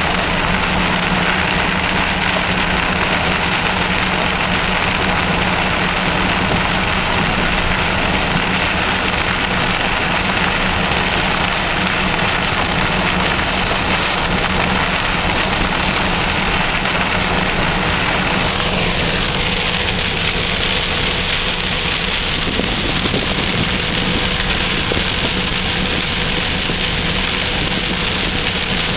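Rain on a moving car, over the steady drone of its engine and tyres on the road.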